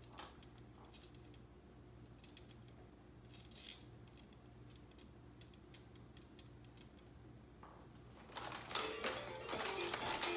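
Faint plastic clicks and rattles from the toys on a baby's Fisher-Price activity jumper. About eight seconds in, a louder clatter begins, with short notes of the jumper's electronic toy tune.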